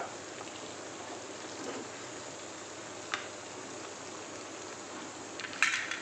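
Chicken curry sizzling steadily in an oiled kadai while a spatula stirs it, with a few clicks and scrapes of the spatula against the pan, the loudest near the end.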